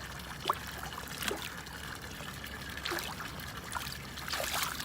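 Water trickling steadily, with several short sharp splashes or knocks through it.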